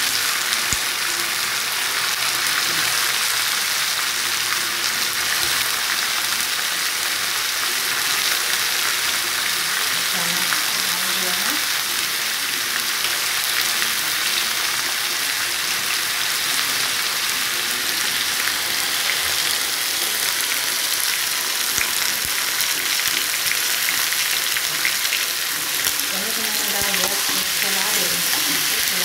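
Chickpeas and potato pieces frying in oil in a pan, a steady, unbroken sizzle.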